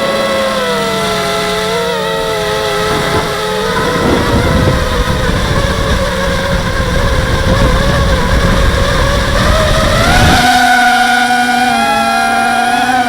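H250 FPV quadcopter's electric motors and propellers whining in flight, the pitch sagging and rising as the throttle changes. A low rumble runs under it from about four seconds in to about ten seconds in, when the pitch jumps up sharply.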